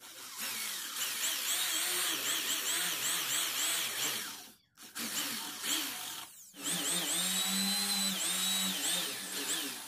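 Electric drill with a Forstner bit boring flat-bottomed holes into plywood, the motor pitch dipping and recovering as the bit bites. Two runs, the first stopping about four and a half seconds in, with a brief blip before the second starts.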